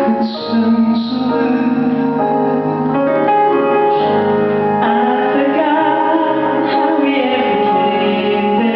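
A woman singing a slow ballad over piano accompaniment, holding long notes.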